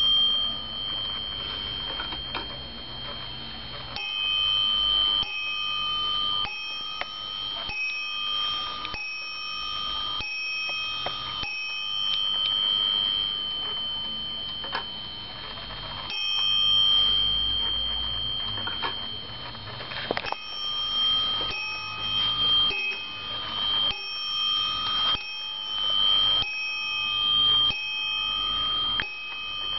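Warmink Zaanse wall clock striking on its bell: single strikes roughly a second apart in runs, broken by pauses of a few seconds, each note ringing on until the next. The strikes are being set off by turning the clock's hands by hand.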